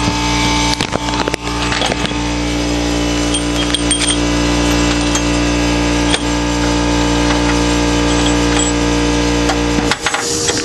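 Scattered clinks and knocks of hand tools on engine metal over a steady mechanical hum that cuts off about ten seconds in.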